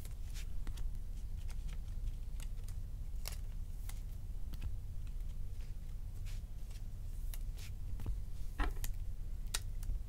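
Scattered light clicks and rustles of trading cards and plastic card sleeves being handled on a tabletop, with a cluster of clicks late on, over a steady low hum.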